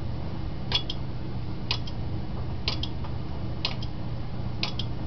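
Relays of a homemade 4-bit relay binary counter clicking as it counts, a sharp double click about once a second, over a steady low hum.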